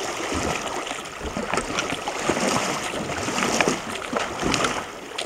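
Kayak paddle strokes, with repeated irregular splashes as the blades dip into a shallow creek, over the rush of water running through a gravel riffle.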